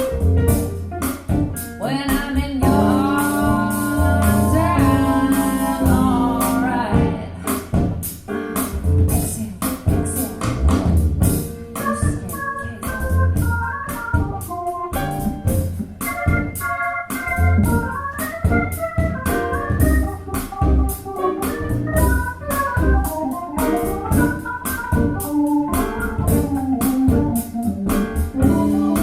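Music played back through a pair of JBL Studio 590 loudspeakers, which use compression horn tweeters. The music has a steady beat and a keyboard melody.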